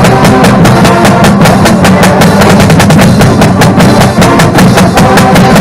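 Marching drumline playing a fast battle cadence: snare and bass drums striking together in a loud, dense, rapid rhythm that breaks in suddenly.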